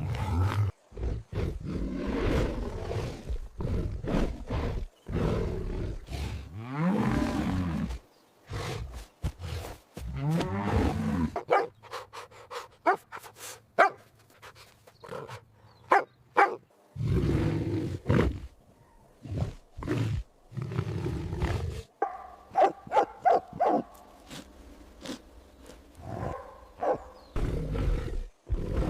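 Big cat roaring and growling: a string of separate calls with short gaps between them, some long with a rising and falling pitch, others short and sharp.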